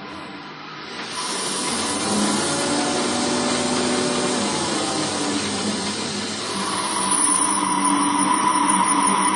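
Small lathe running and cutting a clarinet tuning ring: a steady motor hum under a hiss of cutting that grows louder about a second in, with a steady whine coming in past the middle.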